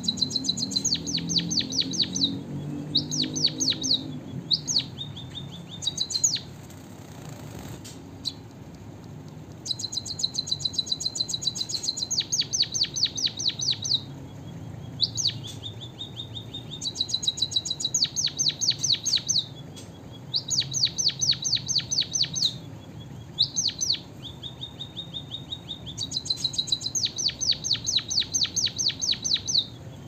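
White-headed munia singing a song filled with learned canary phrases: repeated bursts of fast, high rattling trills, each one to a few seconds long, with short pauses between them.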